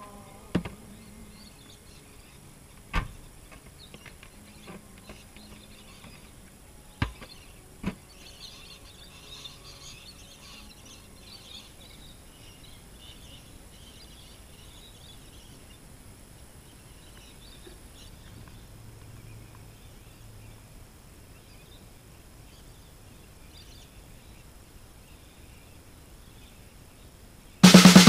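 Quiet outdoor ambience with faint high chirping and four sharp knocks in the first eight seconds. Rock music starts abruptly near the end.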